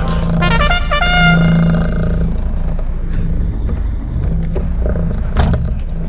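A brass-sounding music sting plays out and fades within the first two seconds, leaving the steady low hum of the fishing boat's engine under a rumble of wind and sea. A single sharp knock about five and a half seconds in.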